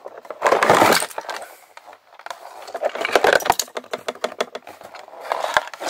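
Loose plastic Lego pieces rattling out of a cardboard box onto a fleece blanket: a short burst of tumbling pieces about half a second in, then scattered clicks and clatter as more pieces drop and shift.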